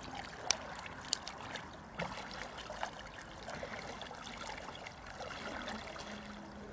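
Soft water sloshing and light splashing as a person in a wetsuit and fins wades backward into shallow lake water, with a few small sharp splashes in the first three seconds.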